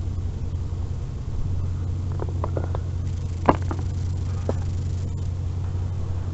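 Vehicle engine running with a steady low rumble. Over it come a few light knocks, with a sharper knock about halfway through.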